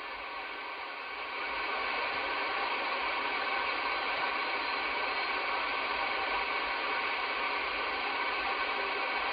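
Steady static hiss from a Midland Alan 9001 CB radio's speaker on an empty 11-metre channel between skip transmissions. The hiss rises a little about a second and a half in, then holds steady.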